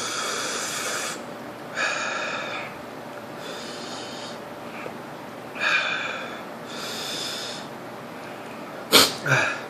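A man breathing hard through his mouth: about five hissing breaths, each under a second and spaced a second or two apart, as he pants against the burn of a superhot chili pepper. Near the end come two or three short, sharp mouth sounds.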